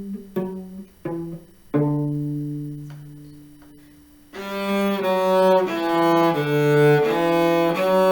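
Cello played pizzicato: several plucked notes, the last one ringing out for about two seconds. About four seconds in, the player switches to the bow (arco) and plays a steady line of sustained notes that change pitch every half second or so.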